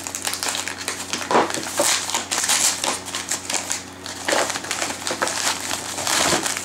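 Brown paper mailer envelope being cut and torn open by hand: paper crinkling and ripping in irregular bursts.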